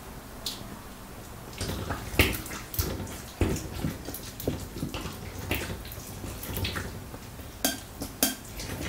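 Chopsticks stirring batter-coated chicken pieces in a glass bowl: wet squelching and slopping with irregular clicks of the chopsticks against the glass.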